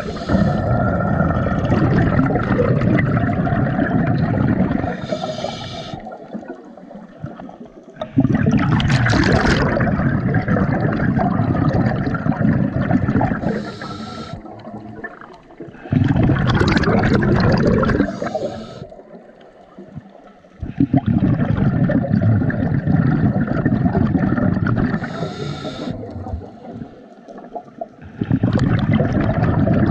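Scuba diver breathing through a regulator underwater: long rushes of exhaled bubbles lasting several seconds each, alternating with short hissing inhalations, five breaths in slow succession.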